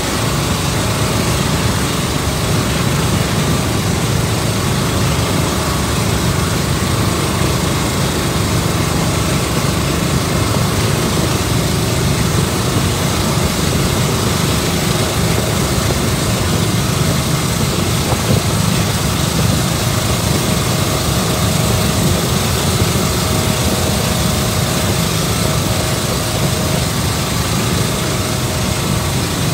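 Water taxi's engine running steadily: a constant low drone with a rushing noise over it.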